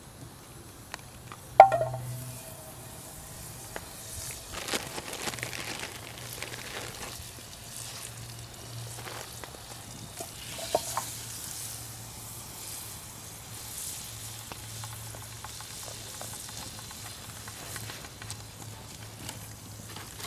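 Food frying in a pan over a campfire, sizzling steadily from about four seconds in. A sharp metallic clink comes just before the sizzling starts, and a smaller one comes about eleven seconds in.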